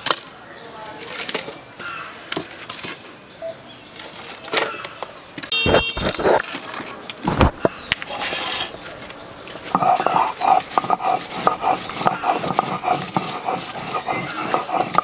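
A heavy stone roller knocks against a stone grinding slab (shil-nora) a couple of times, with low thumps about halfway through. In the last few seconds comes a quick rhythmic run of rolling and crushing strokes as chopped onion is ground on the slab.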